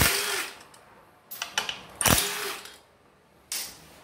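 Cordless impact wrench undoing the bolts of a scooter's CVT variator cover, in three short bursts, each with a motor whine that speeds up and winds down.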